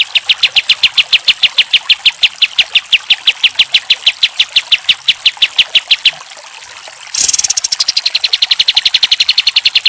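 Olive-winged bulbul (kapas tembak) singing a fast, even string of sharp high repeated notes, about eight a second. The string breaks off about six seconds in, and after a second's pause it starts again with a harsher burst.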